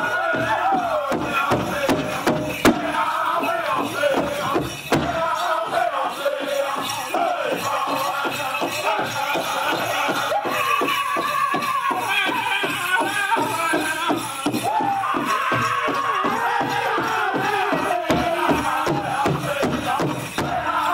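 Powwow drum group singing a chicken dance song in chorus over a steady, fast beat on a large drum.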